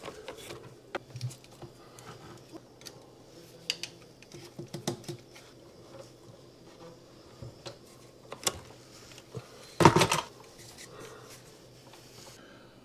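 Irregular light clicks and knocks of hand tools and wiring accessories being handled, with one louder clatter about ten seconds in.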